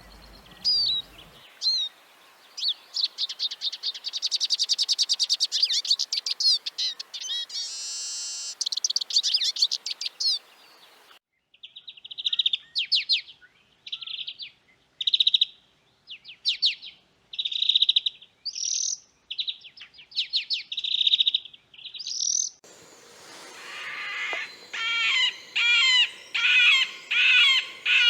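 Small songbirds singing and calling at a winter bird feeder, in three successive recordings that change abruptly about 11 seconds and 23 seconds in. First comes a fast, high trill with scattered calls; then short phrases repeated with pauses; then a steady series of lower repeated calls.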